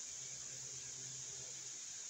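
Faint steady hiss with a faint low hum underneath; nothing starts or stops.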